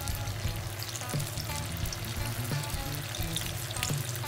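Paneer-and-potato kofta balls sizzling and crackling as they deep-fry in hot oil in a shallow pan, with background music underneath.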